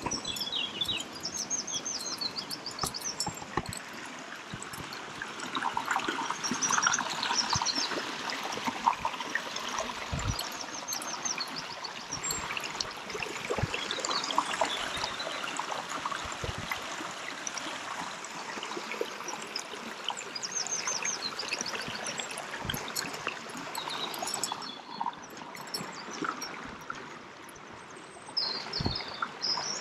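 Shallow stream trickling and flowing over rock slabs, a steady rush of water, with birds chirping now and then.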